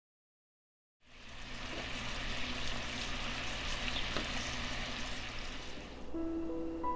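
Food sizzling in a hot frying pan, with scattered crackles, starting about a second in. Music with held notes comes in near the end.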